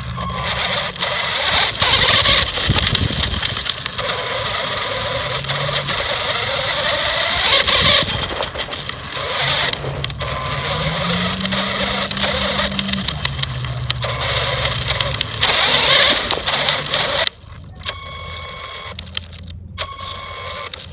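Small electric RC truck's motor and gear drivetrain whining, heard from a phone mounted on the truck itself, over a constant noisy rush as it drives over dirt; the whine rises and falls in pitch with speed, highest a little past the middle. It cuts off suddenly about three and a half seconds before the end, leaving a much quieter background.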